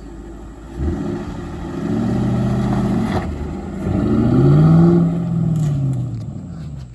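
Old Ford Mustang's engine revving hard as the car is driven: the revs jump about a second in, hold, climb again past the middle, then fall away near the end.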